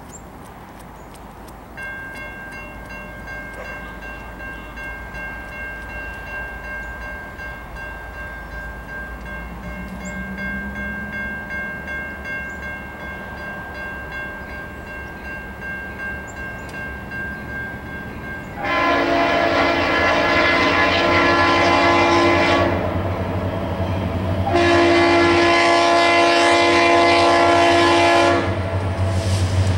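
A grade-crossing bell rings steadily from about two seconds in. Then an approaching freight locomotive's air horn sounds two long blasts and starts a third, shorter one near the end, the crossing-whistle signal, over a low engine rumble that grows as the train nears.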